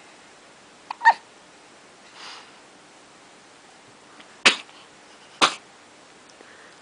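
Hiccups: a short, sharp hiccup about a second in, a faint one a second later, then two loud, sudden hiccups about a second apart.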